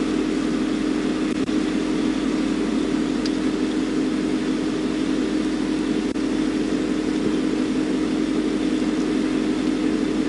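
Vehicle engine idling: a steady, even hum with no change in pitch or loudness.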